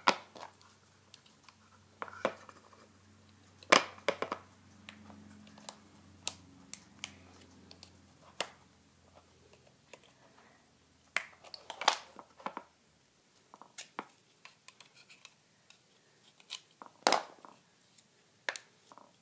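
Irregular sharp clicks, taps and scrapes of a small screwdriver prying at the metal shield and plastic release tabs of an OEM Lexus HID ballast's bulb socket, working the shield loose.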